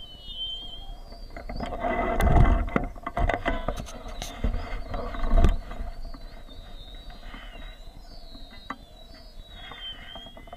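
Birds chirping, with a louder stretch of knocks, clicks and rustling from about one and a half to five and a half seconds in.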